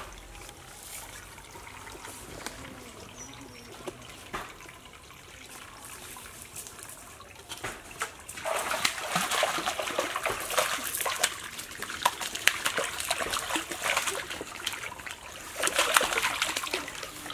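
Hooked catfish thrashing at the surface of a small pond: dense, choppy water splashing that starts about halfway through and lasts several seconds, with a second burst near the end.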